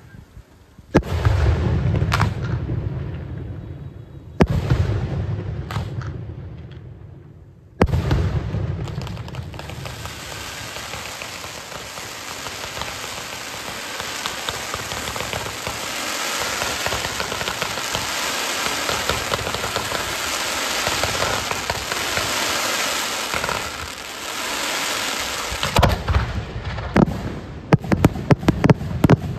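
Aerial fireworks display: three heavy shell bursts, each a boom followed by a long fading rumble, then a long dense crackling hiss of crackling stars, and near the end a quick string of sharp bangs.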